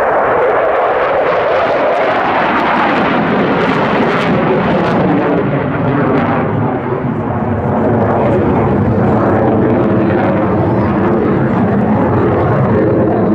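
A JAS 39 Gripen fighter's single RM12 turbofan jet engine, a loud steady rush of jet noise from the aircraft in flight, easing slightly midway and then holding steady with a faint whine running through it.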